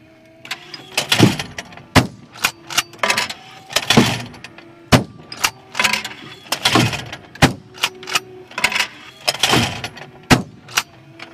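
Shotgun fire at clay targets: a string of sharp cracks, with louder, echoing blasts about every three seconds.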